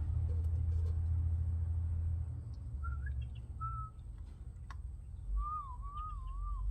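A clear whistle: two short notes, then a longer wavering whistle near the end, heard over a low rumble that dies away after about two seconds.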